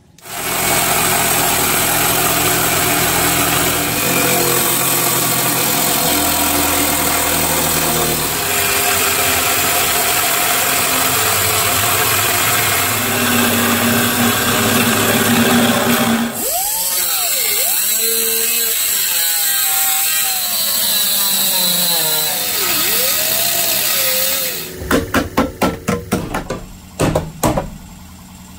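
Corded power saw cutting through a plywood van floor, running steadily under load. About halfway through, its pitch wanders up and down. A quick series of sharp knocks comes near the end.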